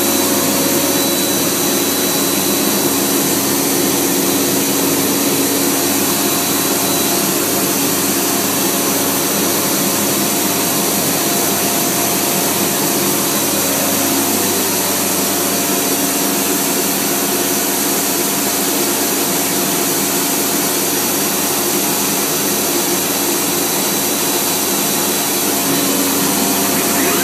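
OMNI CNC router's spindle running steadily as it engraves a pocket into a wooden board: a loud, unchanging hum and hiss of motor and cutter.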